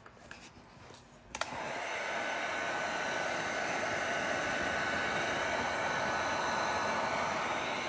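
Electric heat gun switched on with a click about a second and a half in, then blowing steadily with an even fan hiss and a faint steady whine, as it heats vinyl wrap film to soften it.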